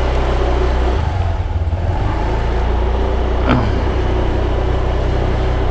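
A Honda Genio scooter's small single-cylinder engine runs steadily while riding at low speed, with its note shifting about a second in. A short sharp knock comes about three and a half seconds in.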